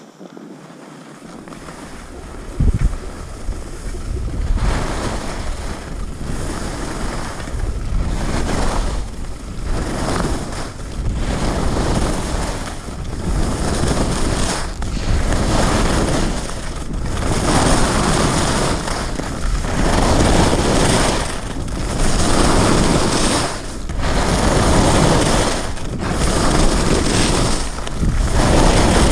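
Skis scraping over hard, crunchy snow on a downhill run, mixed with wind rushing over the microphone. It builds up over the first few seconds, then swells and dips with each turn about every one and a half to two seconds.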